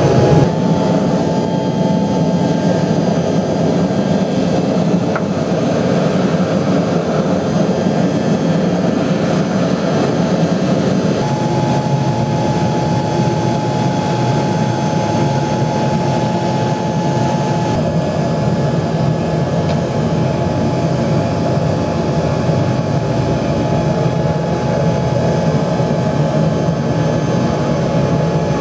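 Melting furnace burner running with a steady, loud rushing noise.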